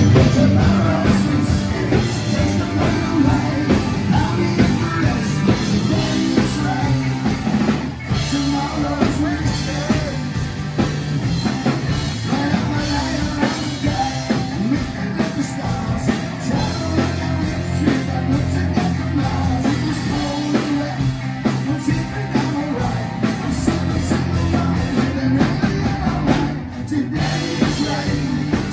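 Rock band playing live: distorted electric guitars, electric bass and a drum kit, with a sung lead vocal over the top. The loudness drops briefly twice, near the start and near the end.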